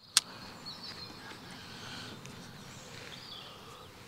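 Birds chirping and calling over a quiet outdoor background, with a single sharp click just after the start.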